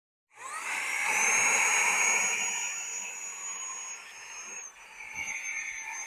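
Cordless handheld car vacuum starting up about half a second in: its motor whine rises quickly, then runs steadily high-pitched over a rush of air drawn through the crevice tool. The pitch dips slightly about four and a half seconds in.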